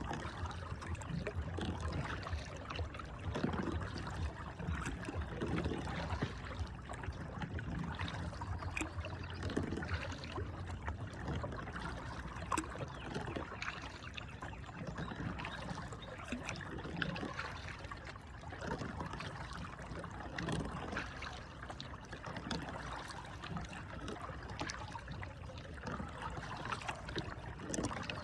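Water trickling and splashing around a kayak on a river, with irregular small splashes and drips as it is paddled.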